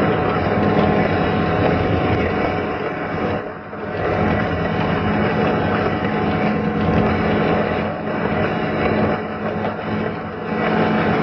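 Train running along the track, heard from the driver's cab: a steady engine drone mixed with wheel and rail noise, dipping briefly about three and a half seconds in.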